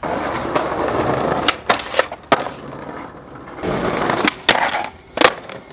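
Skateboard wheels rolling over stone paving slabs, with several sharp clacks of the board, the loudest near the end.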